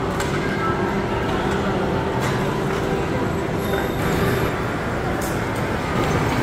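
Steady shopping-mall ambience: a constant wash of indistinct crowd voices and background noise, with a few faint clicks.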